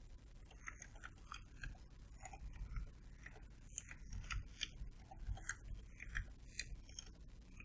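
Computer keyboard typing: faint, quick keystrokes, about three a second at an uneven pace.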